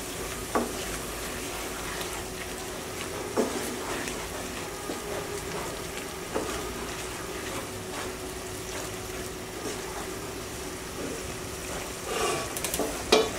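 Onion paste thinned with water sizzling and bubbling in a nonstick pan while a wooden spatula stirs it, with a few knocks of the spatula against the pan. A short clatter near the end.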